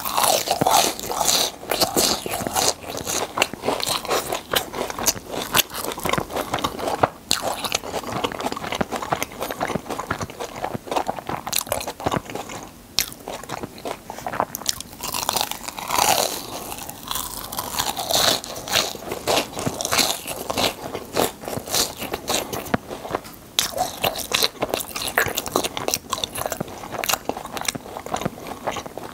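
Close-miked crunching and chewing of crisp fried churros: a continuous run of crisp crackles as the crust is bitten and chewed.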